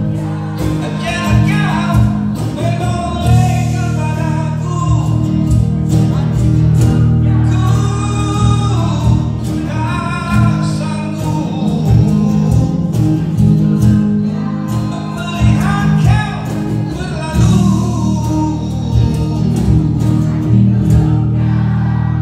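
A Malay rock ballad: a man singing over guitar and a steady, heavy bass.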